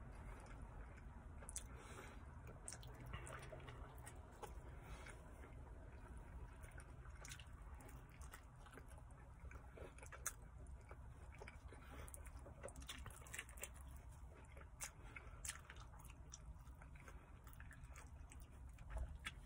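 Faint close-up chewing of a mouthful of pepperoni pizza: soft wet mouth clicks scattered throughout, over a low steady hum.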